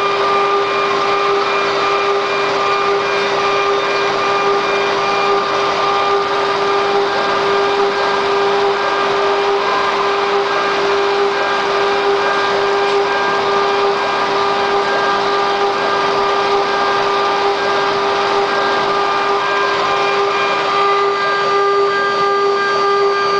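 QS6090 CNC router running, its spindle giving a steady high whine over a constant mechanical noise.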